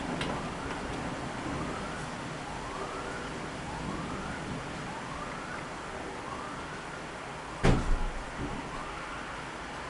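An emergency-vehicle siren wailing, its pitch sweeping up about once a second, over the steady hiss of heavy rain. About three-quarters of the way through comes a single sharp, loud bang.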